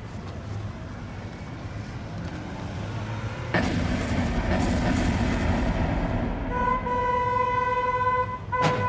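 Small cars driving on pavement, their engine and tyre noise growing suddenly louder about a third of the way in. A car horn then sounds steadily on one note from about two-thirds through, broken near the end by a single sharp bang, as in a staged pile-up.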